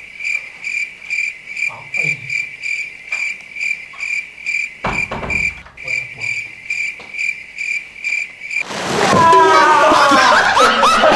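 Cricket chirping sound effect, a steady high chirp about three times a second, the comic cue for an awkward silence. It cuts off abruptly near the end, where a loud burst of shouting and commotion takes over. A single knock sounds about halfway through.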